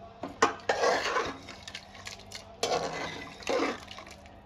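Metal utensil clinking and scraping against a cooking pot in several short bursts, as when curry is stirred or ladled.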